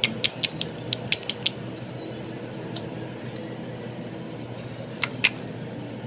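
Slime being pressed and worked by hand, making crisp clicking pops: a quick run of about a dozen in the first second and a half, then two more about five seconds in.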